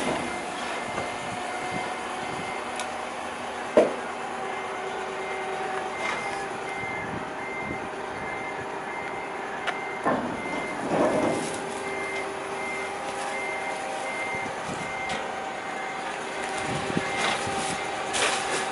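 Rubbish truck idling with its high warning beeper sounding steadily in repeated short beeps, which stop near the end. Over it are a sharp bang about four seconds in and knocks and rustling around the ten-second mark and again near the end.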